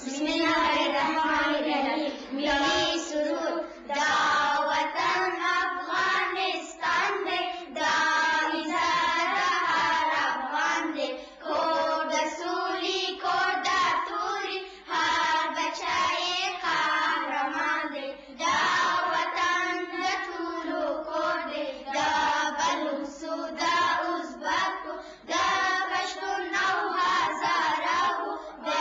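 A group of primary-school children singing together in unison, their high voices moving in phrases broken by short pauses.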